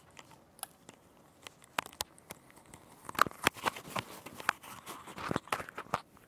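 Clicks, scrapes and clothing rustle from a clip-on lapel microphone being handled and unclipped from a hoodie collar, sparse at first and busier from about three seconds in.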